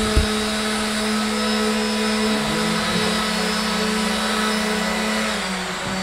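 A steady electric machine hum with a constant low drone and broad whirring noise, and a brief knock just after the start.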